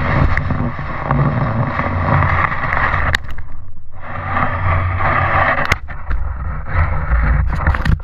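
Wind buffeting an action camera's microphone: a loud rushing noise with heavy low rumble, easing off briefly a little after three seconds in and dipping again near six seconds, with a few sharp clicks near the end.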